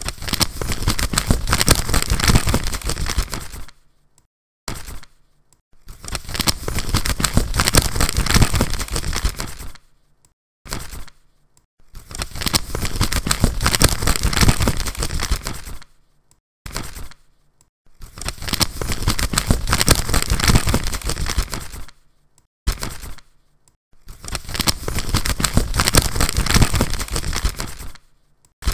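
A paper lottery ticket being rustled and crinkled in the hand, in bursts of about four seconds with a brief crackle between them. The same pattern repeats about every six seconds as the recording loops.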